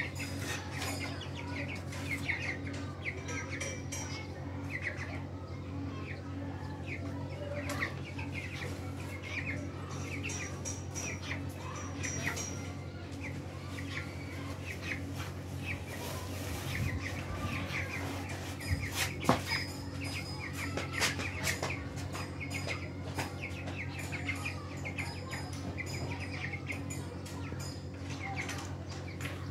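A group of young chickens peeping over and over in short, high chirps, over a steady low hum. A few sharp taps stand out, the loudest about two-thirds of the way through.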